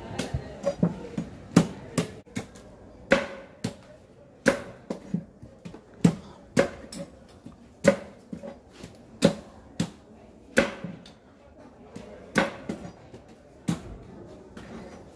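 A machete chopping at a coconut: a series of sharp, hard knocks, roughly one a second, each with a short woody ring.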